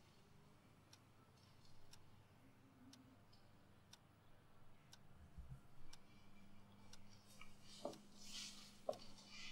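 A clock ticking faintly, about once a second. Near the end there is a faint low hum and a soft rustle.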